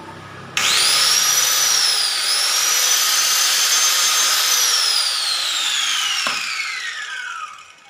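Electric angle grinder switched on, spinning up fast to a high whine and running free with a brief dip in speed, then switched off and winding down in a long falling whine. A single sharp click sounds while it coasts down.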